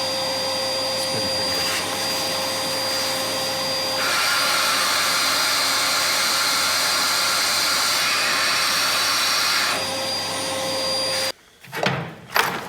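Shop vacuum running steadily with a high whine. It gets louder for about six seconds in the middle, then switches off abruptly near the end, followed by a few clicks and knocks.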